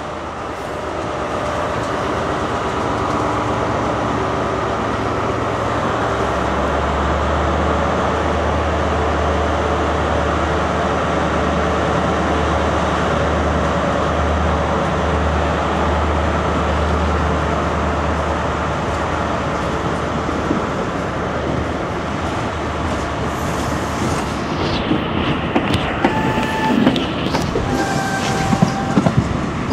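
Diesel multiple unit heard from on board, its underfloor engine droning steadily under power. Near the end the wheels click over rail joints and points, and two short tones sound.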